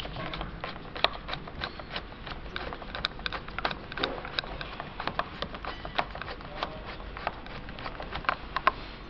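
Screwdriver driving a screw into the metal hinge bracket of the white arm: a run of irregular small clicks and scrapes as the tip turns in the screw head.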